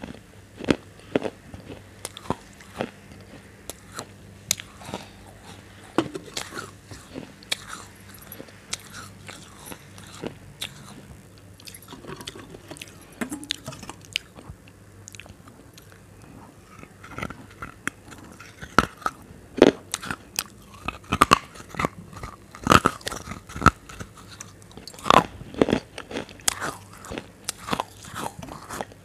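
Crunchy food being bitten and chewed in a run of sharp, irregular crunches, which come louder and closer together in the second half.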